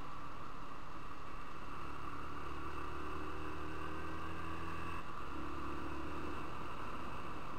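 Motorcycle engine pulling out of a bend under a steady hiss of wind. Its note climbs gently, breaks off about five seconds in and comes back lower, as at an upshift.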